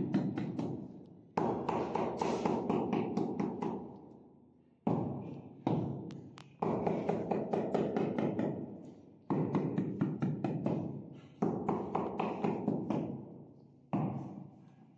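Rapid tapping on a granite stair tread, likely a trowel handle, to bed the slab level in its mortar. The taps come in quick runs of several strikes, each run starting hard and fading, about seven runs in all.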